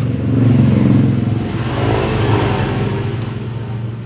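Motorcycle engine revved, swelling about half a second in and easing back toward idle near the end. The clutch area is being checked for a noise that, by the mechanic's account, comes only when the throttle is opened.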